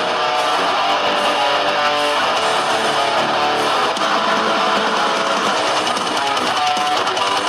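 Background music with guitar, playing steadily without a break.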